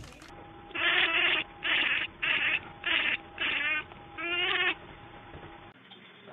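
Domestic cat giving six short, loud calls in quick succession; the last two have a rapid quavering warble.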